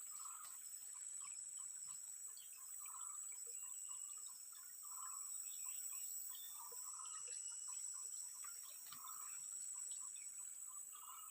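Wild outdoor ambience of insects and birds. A steady high-pitched insect drone runs throughout, under a fast, even ticking pulse of calls that swells every second or two, with a few short bird chirps.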